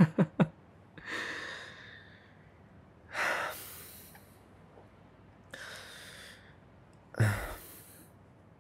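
A man breathing out heavily close to the microphone: four long sighing exhales about two seconds apart, the last with a little voice in it.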